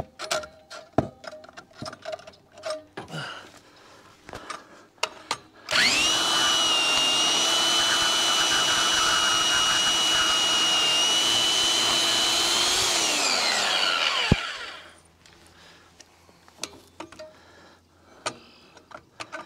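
Handheld portable bandsaw starting up about six seconds in and running at a steady high whine for about seven seconds. It then winds down, falling in pitch, as the trigger is released. Before and after are scattered light clicks and knocks of the saw being handled against the metal frame.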